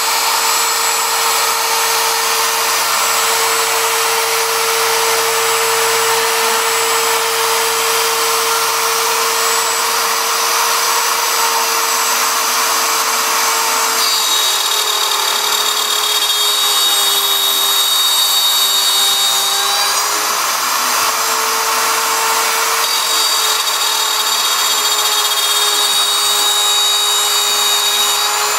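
CNC router spindle running with a steady whine over a rushing noise as its bit cuts a wooden wheel. About halfway through, the whine drops slightly in pitch and thin high squealing tones come in. This happens twice, then the whine rises back.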